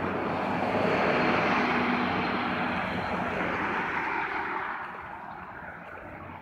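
A vehicle passing by: a rushing noise that swells to its loudest about a second in, then fades away over the next few seconds.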